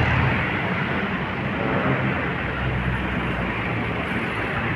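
Steady motor vehicle noise: a running engine under a continuous rushing hiss, with no distinct events.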